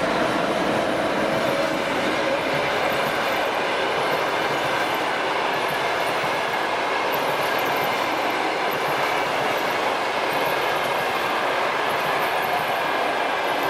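Passenger train coaches rolling past close by at speed: a steady rumble of steel wheels on the rails, with a hum from the departing electric locomotive fading out in the first couple of seconds.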